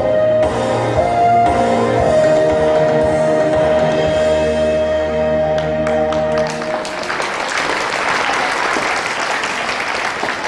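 A dance song ends on a long held note about two-thirds of the way through, and audience applause follows, slowly fading.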